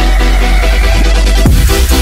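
Electronic dance music: the kick drum pauses while a steady bass holds and a synth sweep rises, then the beat drops back in about one and a half seconds in.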